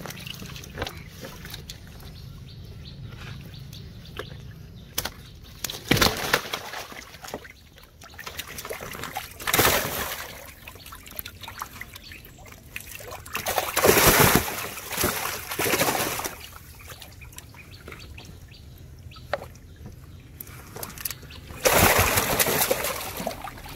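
Live fish thrashing in shallow water in a tarp-lined holding tank, their tails slapping and splashing in several short separate bursts between quieter stretches of lapping water.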